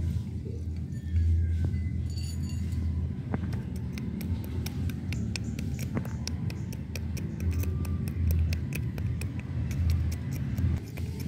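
Black peppercorns being pounded in a tiny terracotta mortar with a small pestle: rapid, irregular clicks and taps that start a few seconds in and keep going as the peppercorns crack.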